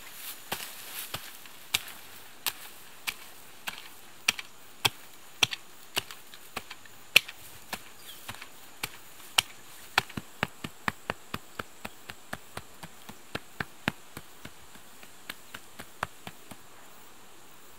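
A short-handled digging tool chopping into dry, root-laced soil: sharp strikes about one every half second, quickening to about three a second midway, then thinning out and stopping near the end.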